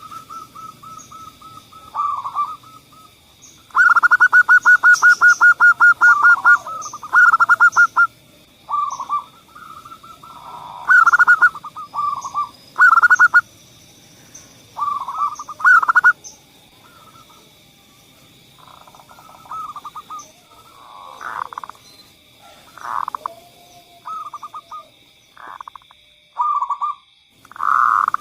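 Zebra doves (perkutut) singing: repeated phrases of rapid staccato coos and rolling trills, loudest in a long run of quick notes a few seconds in. The phrases grow shorter and sparser in the second half. A faint steady high-pitched tone runs underneath.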